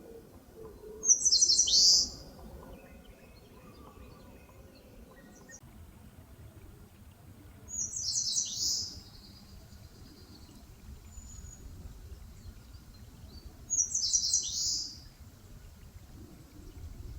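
Eastern crowned warbler singing three times, about six seconds apart: each song is a high, clear phrase of about a second, quick repeated notes ending in a downward slur.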